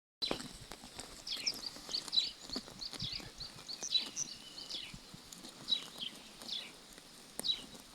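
Sheep grazing close up, tearing and chewing grass in quick crisp clicks, while small birds chirp over it in short repeated notes.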